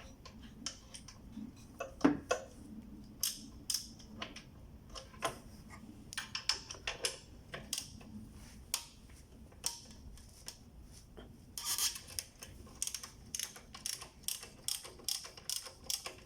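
Socket ratchet wrench clicking in short runs, with metal clinks of tools, while the lower alternator adjuster bolt is worked loose. There is a sharp clank about two seconds in.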